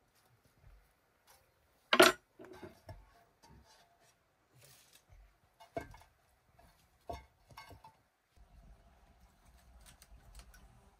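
A sharp, loud knock about two seconds in, followed by a few lighter clicks and knocks, with a low rumble setting in past the middle.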